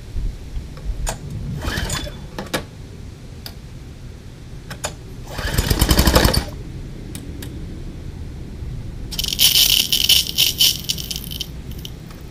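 Briggs & Stratton engine of a Generac pressure washer pulled over by its recoil starter on its first start after a fuel tank and fuel line replacement: one rattling pull about five seconds in that does not catch, and a loud hiss a few seconds later, with scattered knocks.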